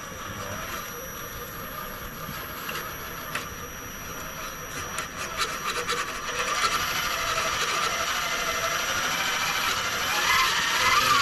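Electric RC scale crawler truck crawling over rough ground: its motor and gears whine while the tyres and chassis scrape and click on rock and dirt. Near the end the whine grows louder and wavers in pitch.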